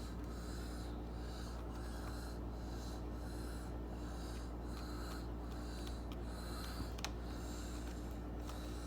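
Wheezing breathing: raspy, hissing breaths in and out, one about every three-quarters of a second, over a steady low hum. A light click about seven seconds in.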